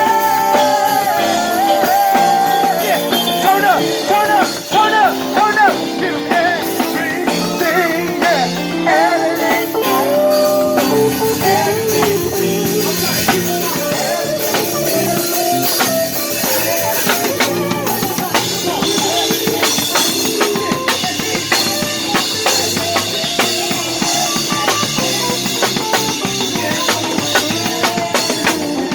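Live band music with a drum kit and guitar, a wavering lead melody standing out in the first half before the band carries on steadily.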